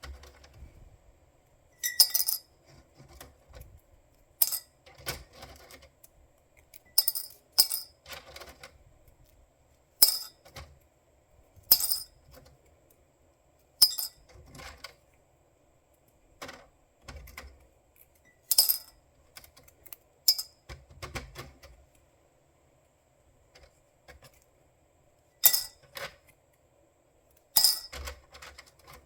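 Hard kitchenware clinking: a series of sharp, ringing knocks at irregular intervals of a second or two.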